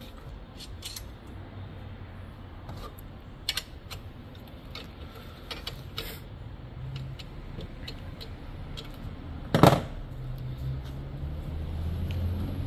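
Strimmer parts being handled during assembly: scattered light clicks and knocks, with one loud knock a little under ten seconds in, over a low hum that comes and goes.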